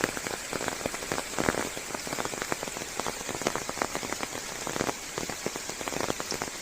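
Steady rain falling on leaves, with many separate drops pattering close by.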